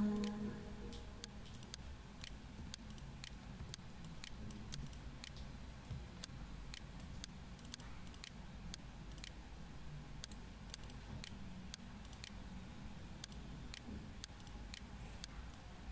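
Faint, irregular clicks of a computer mouse being worked, some coming in quick succession, over a low steady hum.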